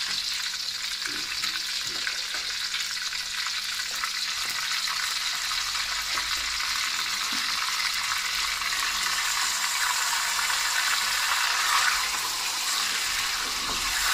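Raw mutton chops sizzling as they fry in hot oil in a karahi, being turned with a wooden spatula. A steady sizzle that grows a little louder in the second half.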